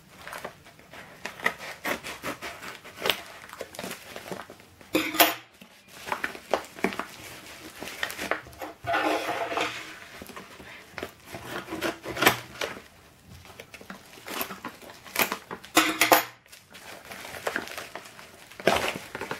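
Scissors cutting open a padded paper mailer, then the envelope rustling and crinkling as it is turned over and pulled open by hand, with a few sharper snips and scrapes.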